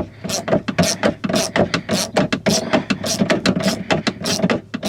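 Hand ratchet with a 10 mm socket clicking rapidly, several clicks a second, as it loosens the nut that clamps the window glass to the regulator in a Tesla Model S rear door.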